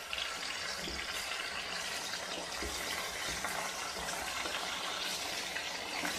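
Raw chicken pieces sizzling in hot oil in a pot, a steady frying hiss, as they are first browned with fried ginger-garlic paste; a spatula moves the pieces near the end.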